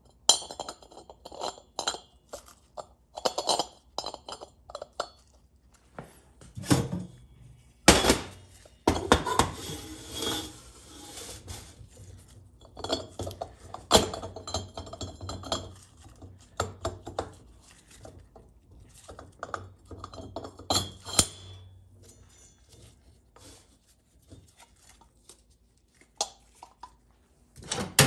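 Steel transmission parts, a Ford 4R100 sun gear and its sheet-metal sun shell, clinking and clanking as they are handled, fitted together and set down on a metal bench. Irregular metallic knocks come throughout, the loudest about eight and fourteen seconds in.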